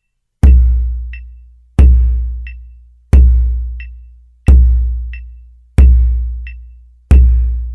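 Bodhrán struck with a tipper in single instrokes: six deep hits about 1.3 seconds apart, each ringing down before the next. A light metronome click at 90 beats per minute falls between the hits.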